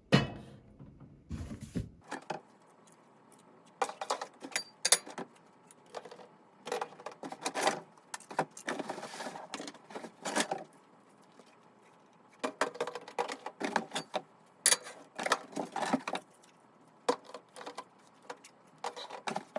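Plastic fire alarm speaker strobes and their packaging being handled, unboxed and set down: an irregular run of knocks, clicks and clattering, with short stretches of rustling.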